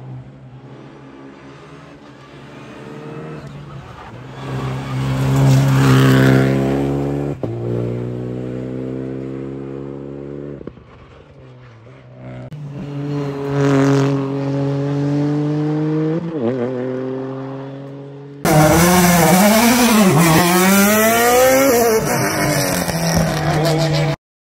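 Rally cars accelerating hard past on a tarmac stage, one about 6 seconds in and another about 14 seconds in, each engine rising in pitch and breaking off at a gear change. About 18 seconds in a loud electronic outro jingle with sweeping tones cuts in suddenly and stops just before the end.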